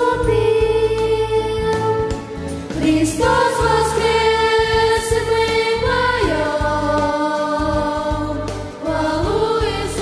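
A small group of children singing a Christian song together in long held notes, with instrumental accompaniment and a steady bass line underneath.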